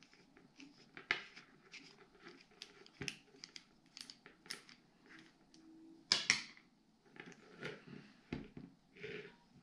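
Small clicks and scrapes of a screwdriver working the line roller screw on a Daiwa spinning reel's bale arm, and of the reel's parts being handled, with a sharper click about six seconds in.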